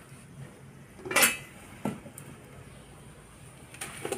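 Metal cookware clattering: one loud ringing clank about a second in, a duller knock soon after, and a few lighter clinks near the end, as a pan lid and ladle are handled against the cooking pan.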